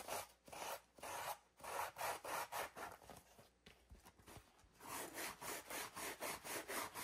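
Sandpaper rubbed by hand in quick back-and-forth strokes over the paper-covered edges of a wooden board, about two to three strokes a second, with a pause of about a second midway. The sanding takes off the ragged decoupage paper edges.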